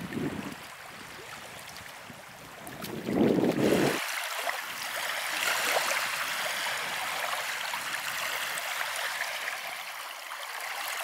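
Wind buffeting the microphone in gusts, the strongest gust about three seconds in. It breaks off sharply at about four seconds into a steady rushing and trickling of water.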